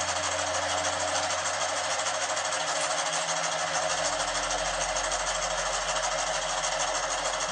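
Electric domestic sewing machine stitching fabric at a steady speed, the needle working in a fast, even rhythm without pause.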